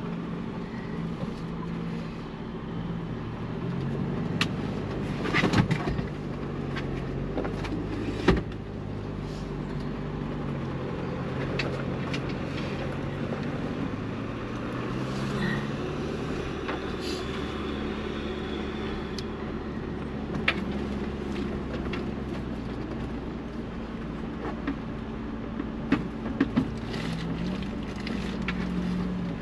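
Ford Bronco's engine running at low trail speed, its pitch rising and falling as the throttle changes while crawling an off-road trail. A few sharp knocks come through, the loudest about eight seconds in.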